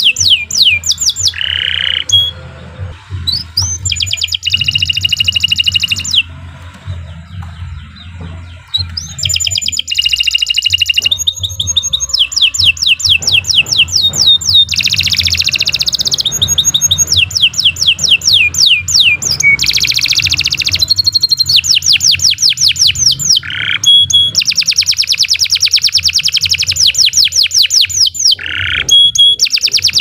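Domestic canary singing long, fast trills of rapidly repeated high notes, phrase after phrase with short breaks, quieter for a few seconds about six seconds in.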